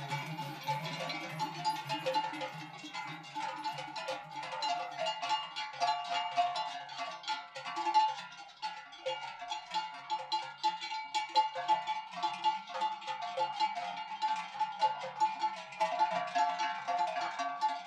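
Large cowbells worn by cows being led in procession, clanging continuously and out of step with each other, many bells at once.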